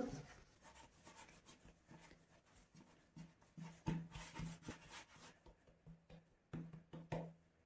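Faint, soft rubbing and patting of hands shaping a ball of kneaded dough on a floured countertop, in a few short clusters about halfway through and again near the end.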